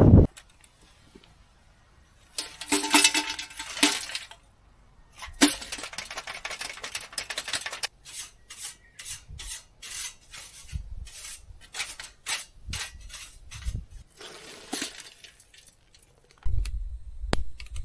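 Handling noise of small hard objects such as kitchenware: a brief ringing clink, some rustling clatter, then a run of short knocks and clicks.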